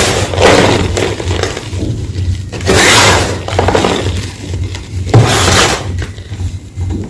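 Homemade gym chalk block being crushed, crunching and crumbling in four loud bursts about two seconds apart.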